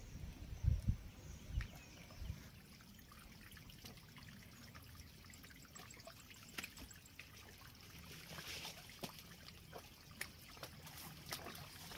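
Faint trickle of running water, with scattered light clicks and two soft thumps in the first two seconds.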